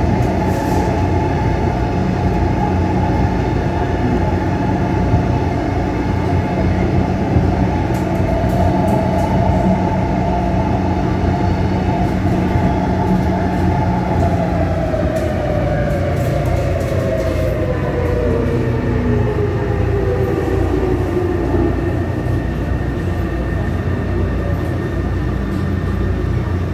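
Taipei Metro train running on the Tamsui line, heard inside the carriage: a steady rumble with a motor whine that falls in pitch through the second half as the train slows.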